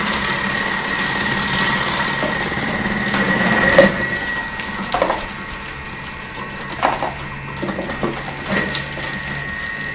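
Thermomix TM6 running with its Cutter attachment, a steady motor whine, while cabbage wedges pushed down the feeder tube are sliced. The slicing noise is loudest for the first four seconds. After that it is quieter, with a few knocks from the pusher and feeder.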